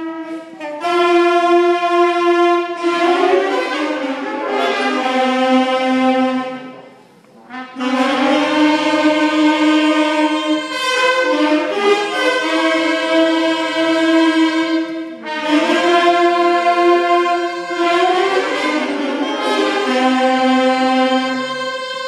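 Beginner elementary school band of saxophones, clarinets, flutes and trombones playing a melody in held-note phrases, dropping out briefly about seven seconds in.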